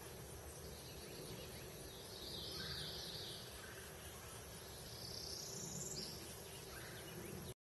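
Faint outdoor nature ambience: a steady hiss with two brief high-pitched calls, about two and a half and five seconds in. It cuts off suddenly near the end.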